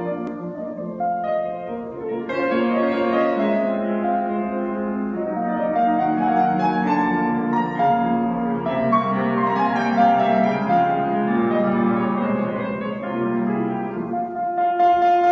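Grand piano playing a classical piece together with a chamber orchestra of strings and winds. Near the end a single long note is held steady over the ensemble.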